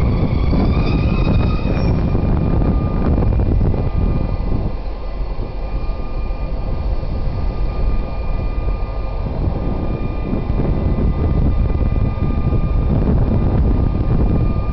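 Class 232 diesel locomotive running past at low speed, with a heavy low engine rumble and a steady high whine. A wavering high-pitched squeal is heard in the first two seconds. The rumble eases for a few seconds midway, then builds again.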